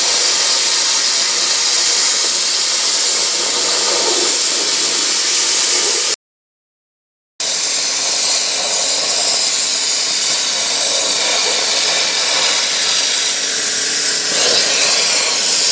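Hypertherm Powermax 1000 plasma cutter cutting through a cast-iron lathe bed: a loud, steady hiss of the cutting arc and air jet. It cuts out completely for about a second, about six seconds in, then resumes.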